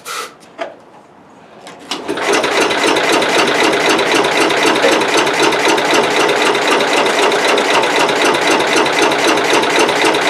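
A few short knocks, then from about two seconds in the Cub Cadet 108's single-cylinder Kohler K-series engine is cranked over steadily by its starter without firing. It has fuel and brake cleaner in the carburettor, but the spark is weak from dirty ignition points.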